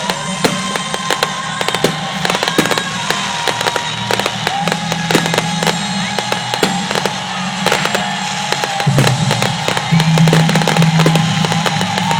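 Fireworks display: a dense, continuous run of sharp cracks and bangs, several a second.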